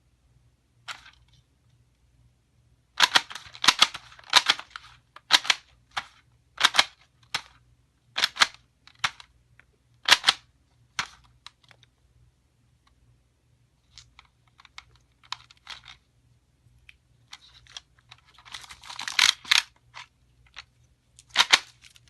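Handheld price gun clacking as its trigger is squeezed again and again, printing and feeding out price stickers: sharp mechanical clacks, some in quick clusters, a steady run of about one a second through the middle, and softer ones later.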